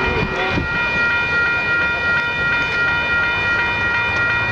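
Railroad grade-crossing bell ringing steadily over the low rumble of passenger cars rolling along the track as the train pulls away.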